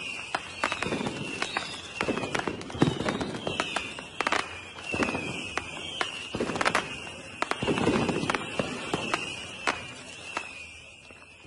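Aerial fireworks bursting: rapid crackling reports and deeper booms, with a high falling chirp repeating through the volley. The bangs thin out and fade near the end as the display dies away.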